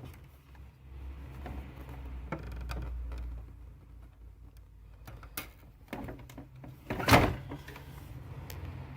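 Plastic clicks and knocks from hands working inside an opened HP Smart Tank inkjet printer while its encoder strip is refitted. A low rumble runs through the first few seconds, and one louder knock comes about seven seconds in.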